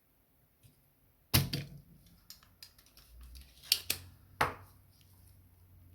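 Spring-loaded desoldering pump (solder sucker) snapping as it is worked on the charging-jack solder joints: a sharp loud click about a second and a half in, a few small clicks, then two more sharp clicks about a second apart near the middle.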